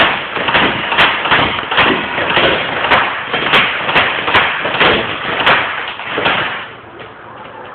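Electric blowback airsoft pistol firing a rapid string of about fifteen sharp clacks, two to three a second, stopping near the end.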